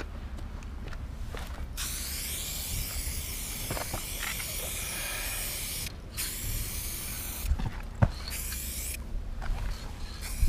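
Aerosol spray-paint can spraying onto a wall in long hisses. The first lasts about four seconds, starting about two seconds in, and is followed after a brief break by shorter sprays. A couple of sharp knocks come about eight seconds in.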